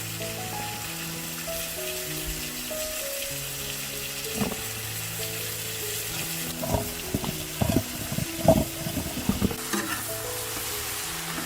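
Food sizzling on a hot sadj, the domed iron griddle, with a steady frying hiss. A run of sharp knocks and scrapes, as from a utensil working the food, comes between about six and a half and nine and a half seconds in. Soft background music plays underneath.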